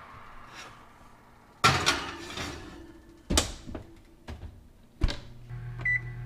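A glass baking dish set on a wire oven rack with clattering knocks, then the Whirlpool oven door shutting with a sharp thud about five seconds in. A short electronic beep from the oven's control panel follows as the timer is set, over a low steady hum.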